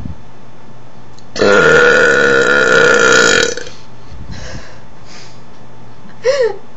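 A woman's long, loud belch, lasting about two seconds at a steady pitch. A short second sound with a wavering pitch comes near the end.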